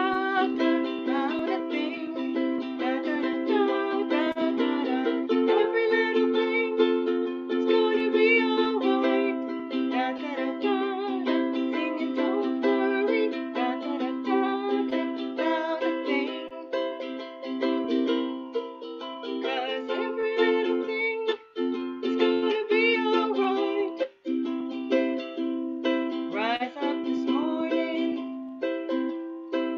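Instrumental intro on a strummed string instrument: chords played steadily, changing every second or two, with two brief breaks a little past the middle.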